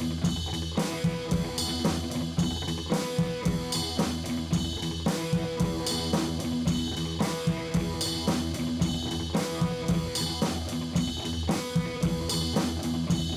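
Background music: a drum kit keeping a steady beat, about two hits a second, under guitar.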